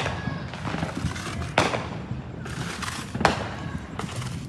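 Aerial fireworks going off: three sharp bangs about a second and a half apart, each trailing off in an echo, over a steady low background noise.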